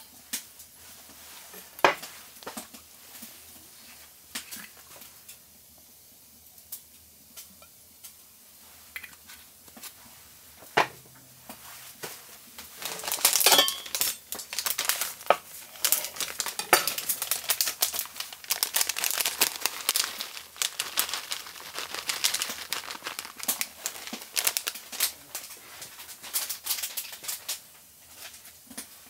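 Kitchen cooking sounds: scattered clinks and knocks of utensils against dishes and pans. About halfway through these give way to a dense, louder run of crackling and clicking that lasts almost to the end.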